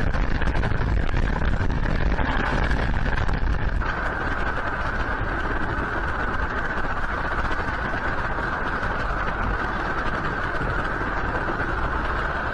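Steady rushing noise with a low rumble picked up by outdoor fixed-camera microphones. It changes character about four seconds in, at a cut between camera feeds, and then runs on evenly.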